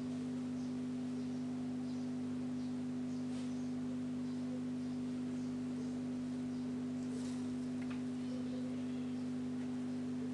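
A steady low electrical hum on one fixed pitch, with a faint hiss and a few faint light ticks.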